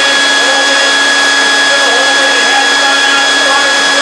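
Leaf blower running steadily at full power, its air blasting out of the nozzle tube against a stretched fabric panel: a loud, steady rush of air with a high motor whine.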